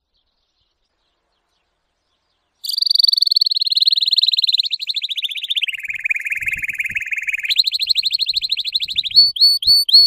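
Canary singing, after about two and a half seconds of silence: a fast rolling trill that drops to a lower trill partway through, returns to the higher pitch, and breaks into slower separate down-slurred chirps near the end.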